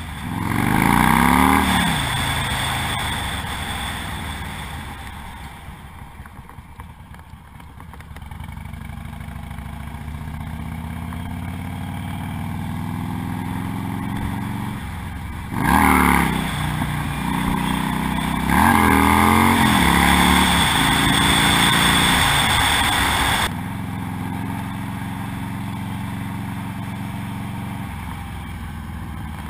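2008 Harley-Davidson Nightster 1200's V-twin engine through a Vance & Hines Blackout 2-into-1 exhaust while riding. It accelerates hard at the start, then eases off to a cruise. From about halfway the revs rise again in several steps and are loud until the throttle is rolled back near the end. Wind buffets the microphone.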